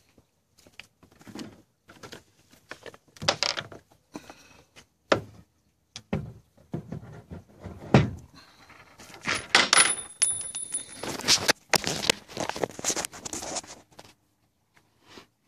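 Irregular handling noise: short knocks and clicks with rustling in between, busiest in the second half, and a brief thin high tone around ten seconds in.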